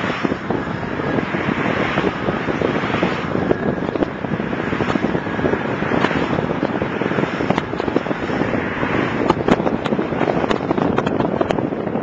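Car driving on a paved road, heard from inside the cabin: steady road and wind noise with dense crackling clicks over it, sharper from about halfway on.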